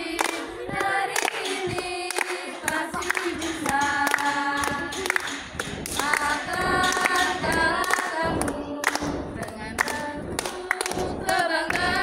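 A group of girls singing a scout team cheer song (yel-yel) together without instruments, clapping their hands along with it.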